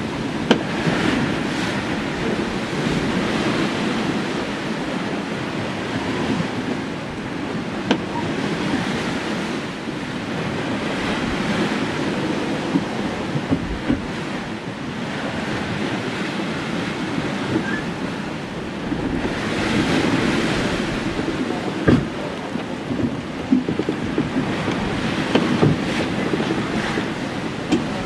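Sea water washing and rushing against the hull of a two-masted schooner under sail, with wind buffeting the microphone. A few sharp knocks break through, the clearest about three quarters of the way in and several more near the end.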